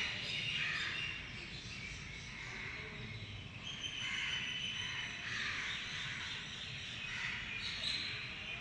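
Birds chirping in the background: a steady chorus of high chirps with a few clearer whistled notes standing out now and then.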